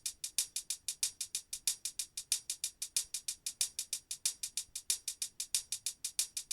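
Programmed hi-hat loop playing back from music production software: a fast, even run of crisp hi-hat ticks, about seven a second.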